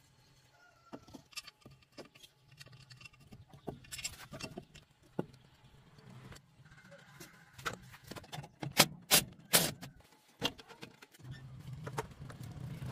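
Scattered metallic clicks and knocks of hands and tools working on a thresher's engine, with a few sharper clanks about nine seconds in. Near the end a motorbike engine rises in level as it approaches.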